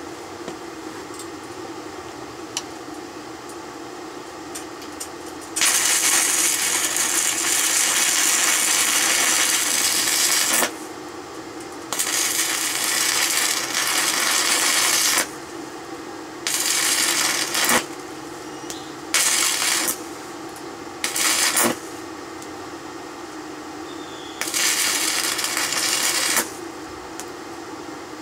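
Stick (arc) welding with a small inverter welder: the arc crackles and sizzles in six bursts, the first about five seconds long and the rest shorter, stopping and being struck again between them. A steady fan hum runs underneath.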